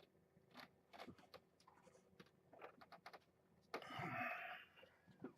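Faint scattered clicks and taps of small objects being handled, with a short rustle about four seconds in.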